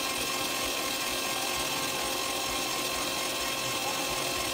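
Arno electric stand mixer running steadily with its wire whisk beating egg yolks into whipped egg whites and brown sugar for a sponge-cake batter: an even motor whine that begins to wind down right at the end.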